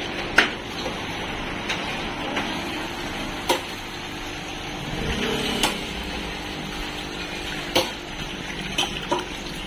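Water bubbling and churning from aeration hoses in fish holding tanks, over a faint steady hum. About five sharp knocks or clicks are spread through it.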